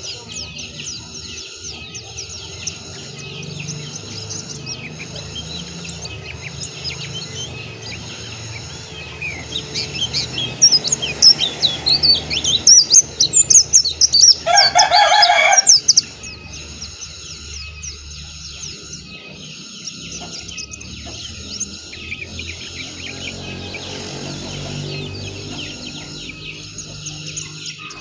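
Pleci dakun white-eye singing: a loud, fast, high warbling burst of rapid chirps and glides from about ten to sixteen seconds in. It sits over a steady background of high chirps repeating about once a second.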